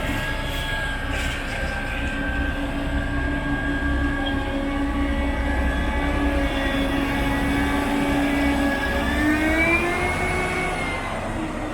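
A machine running steadily, with a held whine whose pitch rises about nine seconds in and then levels off.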